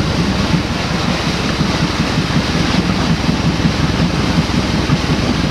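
Side paddle wheel of the steamer Waimarie churning the river water close by: a loud, steady rushing with a low rumble, with wind on the microphone.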